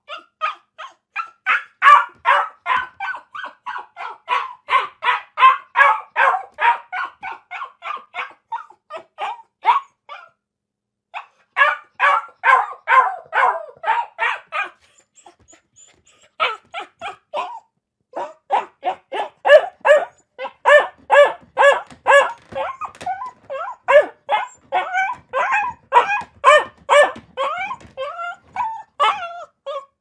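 Dog barking rapidly and repeatedly, about three or four sharp yapping barks a second, in long runs with two short breaks around the middle.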